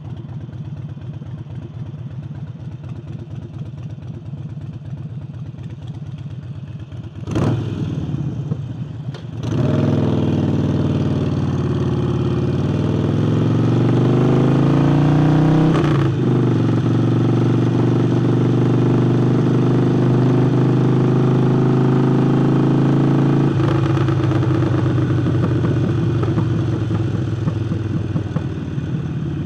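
Harley-Davidson Forty-Eight's air-cooled 1200 cc V-twin, fitted with a new air intake, running on the road: a low steady rumble at first, then louder as it accelerates with rising pitch, a sharp click around a gear change, a steady pull at higher revs, and a drop in level near the end as the throttle comes off.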